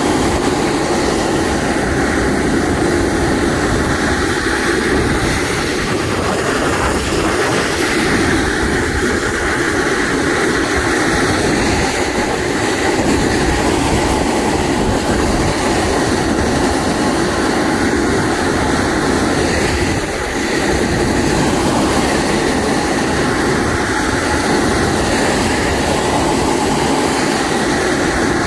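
A snowboard sliding and carving steadily down firm groomed snow at speed: a continuous scraping hiss from the base and edges, with wind rushing over the microphone.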